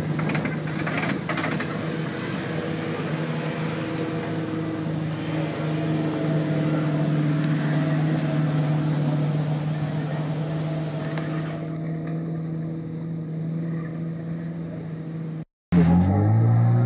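Suzuki off-road trial vehicle's engine running at a steady pitch under load on a steep climb. After a brief dropout near the end, the engine revs up and down.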